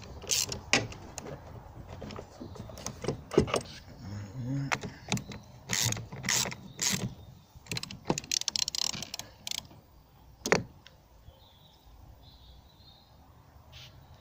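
Ratchet wrench with a 10 mm socket clicking in short runs and metal tapping as the negative terminal clamp nut on a car battery is loosened, with a fast run of clicks near the middle and one sharp knock about ten seconds in.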